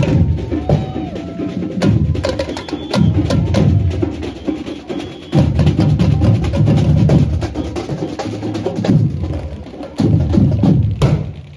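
Procession drum band playing a loud rhythm: heavy bass drums in repeated phrases over rapid, sharp snare or wood-block clicks, with one sharp crack near the end.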